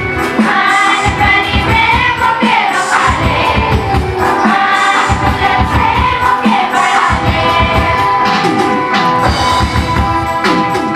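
Music: a group of voices singing a song together over a drum beat.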